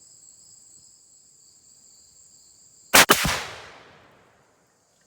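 A single shot from a CVA Paramount .45 inline muzzleloader rifle about three seconds in: a sharp crack with an echo trailing off over about a second. Crickets chirp steadily behind it.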